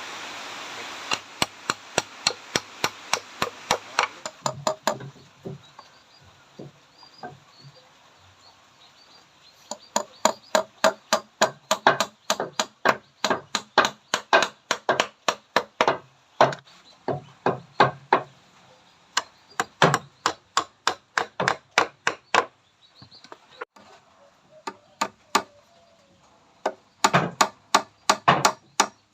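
Hammering on wood: sharp, even blows about three a second, in bursts of several seconds with short pauses between. A steady hiss runs under the first few blows and stops about four seconds in.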